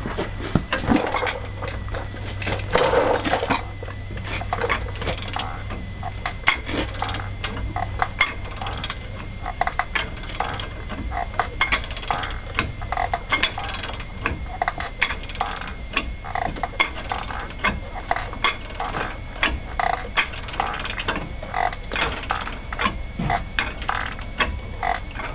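Ratchet wrench clicking in a steady run of short metallic clicks, a few a second, as it turns the screw of a ball joint press to push out a truck's front ball joint.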